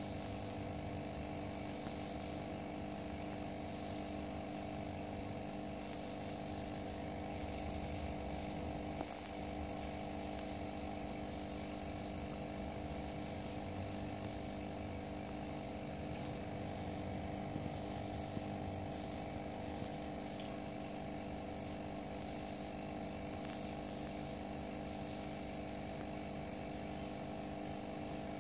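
Insects, crickets or katydids, chirping in a high shrill that switches on and off irregularly, over a steady low mechanical hum.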